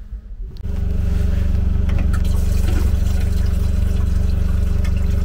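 Antifreeze trickling out of an opened air-bleed valve on a passenger railcar's heating system. The flow shows that coolant is present, at about the minimum mark. Over it, a steady low machine hum starts suddenly under a second in and is the loudest sound.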